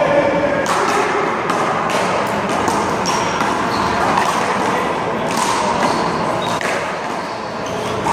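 Handball rally: a small rubber handball is slapped by hand and smacks off the wall and pavement in a run of sharp hits, over steady background chatter.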